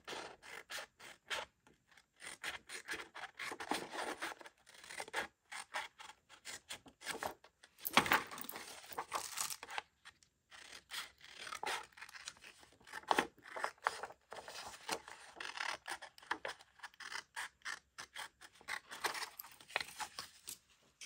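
Scissors cutting through paper: a long run of quick snips with paper rustling, loudest about eight seconds in.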